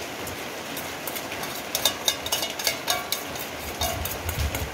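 Steady rain hiss, with a run of sharp metallic clicks from about two seconds in as a small stainless steel bowl knocks and scrapes against a larger steel bowl while salad dressing is tipped out of it.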